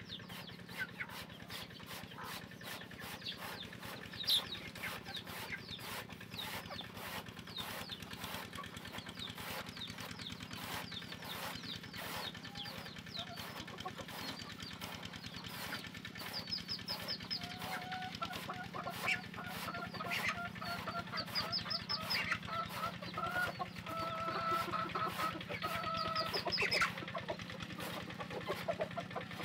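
Knife blade striking and shaving a thick green bamboo trunk in a steady run of sharp strokes. From about halfway, chickens cluck alongside it.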